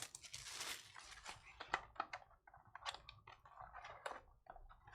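Trading cards and foil pack wrappers being handled on a table: a rustle for about the first second, then a run of small clicks and taps.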